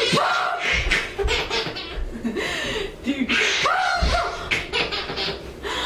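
A baby and an adult laughing in short, broken peals.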